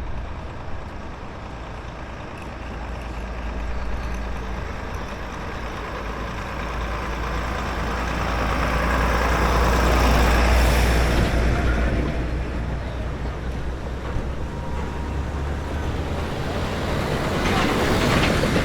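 Vintage vehicles driving past one after another, heavy engines rumbling low and steady. The sound swells to its loudest about ten seconds in as one passes close, then swells again near the end.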